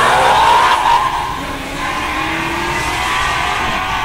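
A car engine revving hard, its pitch climbing and then levelling off about a second in.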